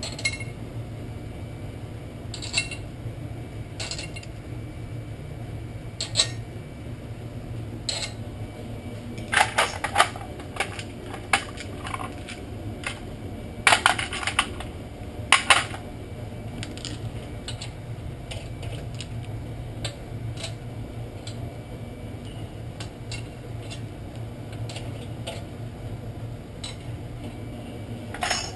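Metal hand tools, sockets and lug nuts clinking and clattering as they are handled, picked up and set down, in scattered clinks with busier clusters around ten and fourteen seconds in. A steady low hum runs underneath.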